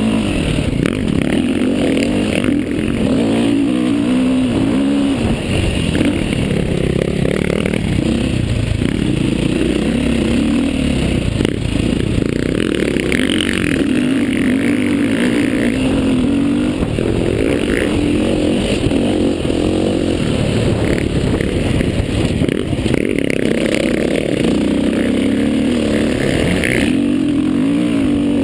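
Dirt bike engine running close to the microphone, revving up and down repeatedly as the bike is ridden, with rattles and knocks from the chassis.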